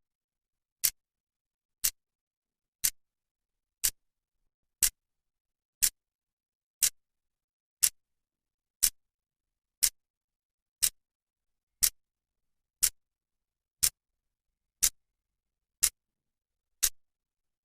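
Clock ticking, its second hand advancing with one sharp, bright tick a second and silence between the ticks.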